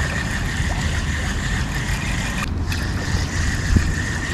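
Low, steady rumble of wind on the camera's microphone with water swishing around legs wading through shallow lagoon water, and one soft knock near the end.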